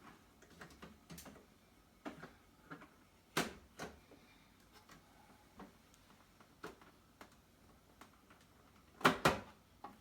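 Scattered clicks and knocks of refrigerator ice-dispenser parts being handled and fitted back into place, with a sharper knock about a third of the way in and two loud knocks in quick succession near the end.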